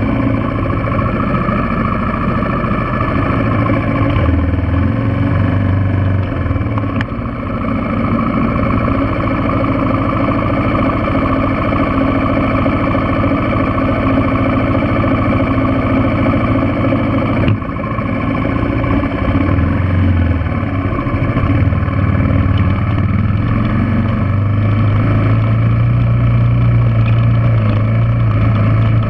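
Yamaha TW200's single-cylinder four-stroke engine running at low speed, the revs rising a few times and climbing steadily near the end as the bike moves off along a rocky trail. One brief knock a little past halfway.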